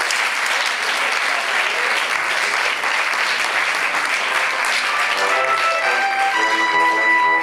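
Audience applauding, thinning out about five seconds in as music starts with a few held notes.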